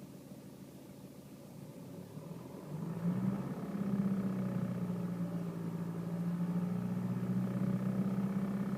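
2010 BMW 320d's four-cylinder diesel engine running, heard from inside the car; about three seconds in the revs rise and are then held steady. The owner reports a vibration rattle from the passenger footwell at around 2000 rpm.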